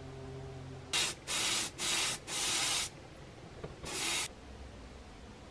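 Pressurised spray hissing in five short bursts, four close together and a last one a second later, as a small chrome model part is sprayed or blown over.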